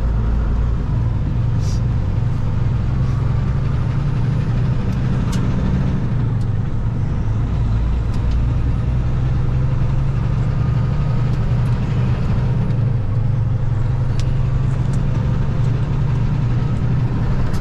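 Heavy truck on the move, heard from inside the cab: a steady low engine and road rumble.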